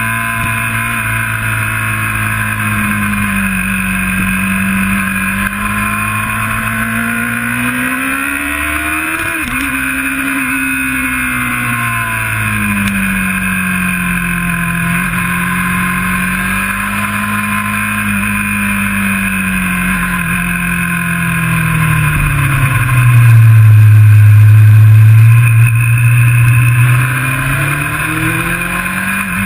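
Sports motorcycle engine heard from onboard at track speed, its revs rising and falling again and again as the rider works through the gears and corners. It is loudest about two-thirds of the way through, where the note drops low for a few seconds.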